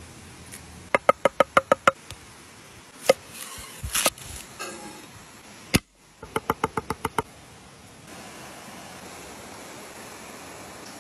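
A knife chopping fresh herbs on a wooden cutting board: two quick runs of about eight or nine knocks, about a second in and again about six seconds in, with a few single knocks between. A stream runs steadily underneath.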